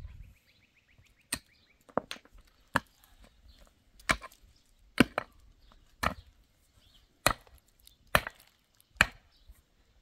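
A hand pick striking stony, dry soil in repeated blows, about one a second, each a sharp thud with a gritty crunch of earth and stones.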